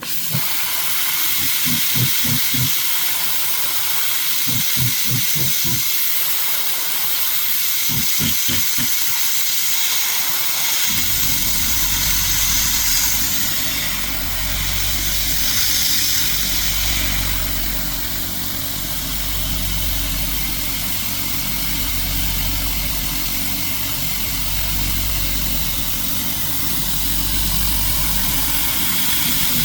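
CNC router spindle running with a steady high hiss while the machine drills holes in the part held on the 4th axis. Short groups of low pulses come in the first several seconds, then about 11 seconds in a steady low rumble sets in under the hiss as the drilling goes on.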